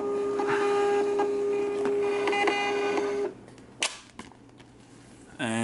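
Zebra UPS LP2844 direct thermal label printer feeding out a 4x6 test label: a steady motor whine for about three seconds that then stops. About half a second later there is a single short sharp sound as the printed label is torn off.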